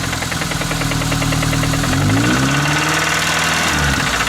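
Truck engine running with a fast, light knock, its oil dosed with Lucas Oil Stabilizer to quiet the knock. Engine speed rises about two seconds in and drops back shortly before the end.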